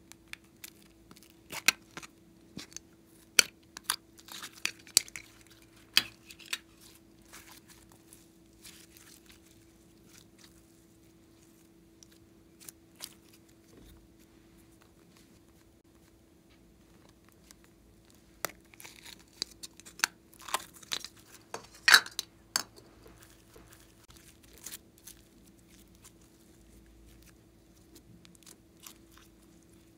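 Plastic slime containers being opened and glossy slime pulled and squeezed out by hand: sharp clicks and sticky crackles, in one flurry over the first few seconds and another about 18 to 23 seconds in.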